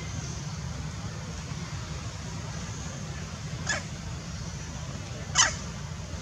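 Two short, high-pitched animal squeaks about a second and a half apart, the second louder, over a steady low rumble.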